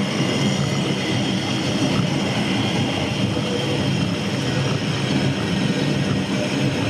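Shipley Glen Cable Tramway car running steadily on its rails, a continuous even running noise with no breaks.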